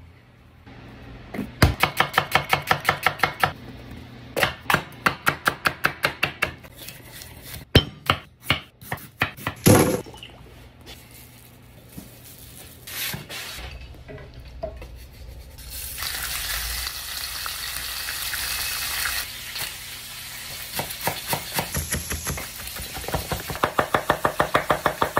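Kitchen food-prep sounds: runs of fast, even knife chops on a wooden cutting board, about seven or eight strokes a second, a few separate knocks and clinks, and a few seconds of steady hiss midway. Near the end the chef's knife chops fresh parsley and garlic in another quick run.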